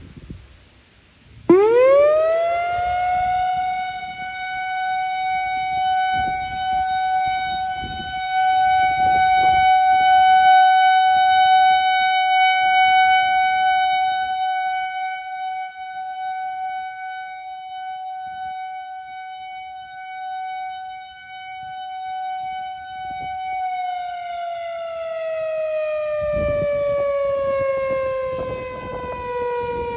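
Whelen WPS 4004 rotating electronic outdoor warning siren sounding a steady alert tone of about 755 Hz. It winds up quickly a second or two in, holds its pitch for about 22 seconds with the volume slowly swelling and easing as the speaker head turns, then winds down in a slow falling glide near the end.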